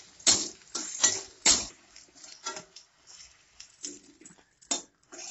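Metal spatula scraping and knocking against a steel kadai while turning and scooping out fried eggplant pieces: three loud strokes in the first two seconds, then softer, sparser ones.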